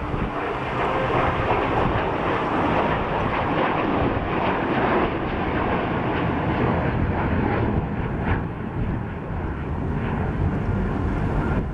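Avro Vulcan bomber flying past, its four Olympus turbojets giving a steady, loud rushing jet noise.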